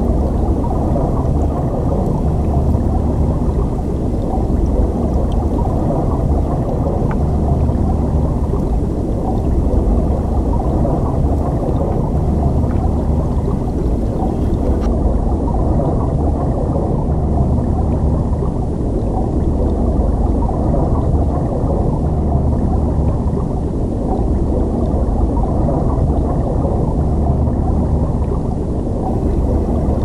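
Flowing stream water heard underwater: a steady, low rushing noise.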